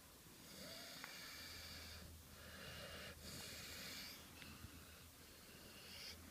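American Bulldog snoring softly in its sleep, a run of slow, faint, rasping breaths about a second or two apart.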